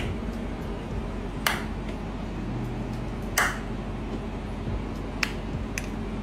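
Peacock mantis shrimp striking a crayfish with its clubs: a handful of sharp clicks, unevenly spaced a second or two apart, over a steady low hum.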